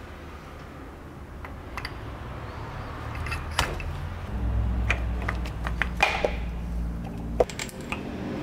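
Light metal clinks and knocks from a BTR automatic transmission's pump cover being handled and set down onto the oil pump housing, several sharp taps spread across a few seconds. A low hum sits underneath them for a few seconds in the middle.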